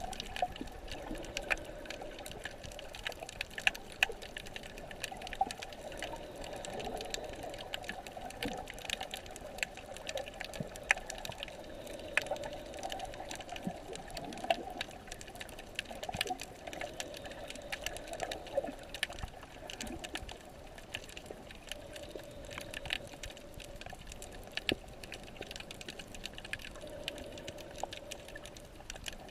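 Underwater sound as picked up by a camera below the surface: a steady wash of water with a dense, irregular crackle of sharp clicks and a wavering hum underneath.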